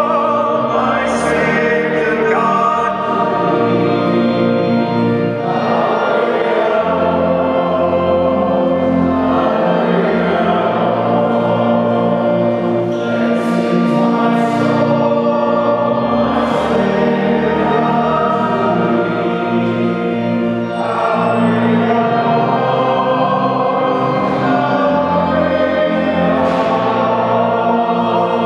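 A hymn sung by several voices over sustained accompanying chords, steady throughout.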